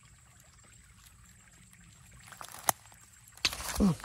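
A tall grass stalk being yanked out of the ground: a sharp snap about two-thirds in as it breaks free, then a burst of rustling leaves and a short grunt falling in pitch near the end.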